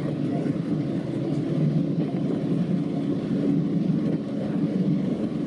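Diesel multiple unit's engine running steadily under power with the rumble of wheels on rails, heard from inside the driver's cab.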